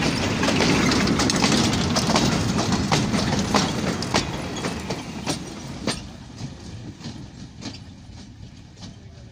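Freight train wagons rolling past close by, their steel wheels clacking over the rail joints. The rumble fades from about halfway through as the train moves off, and fainter clacks go on.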